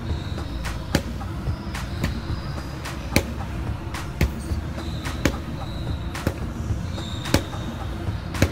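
Boxing gloves punching focus mitts: about a dozen sharp smacks at an uneven pace, roughly one a second, some landing in quick pairs.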